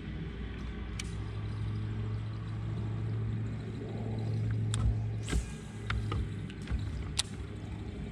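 Steady low hum of a motor on a bass boat, easing off a little past halfway, with a few sharp clicks and knocks over it, the loudest about five seconds in.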